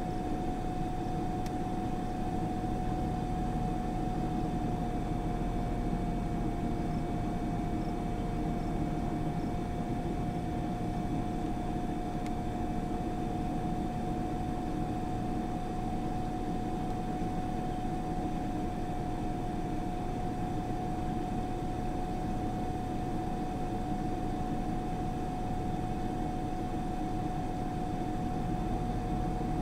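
Steady noise inside a stopped vehicle, a low rumble under a constant single-pitched hum.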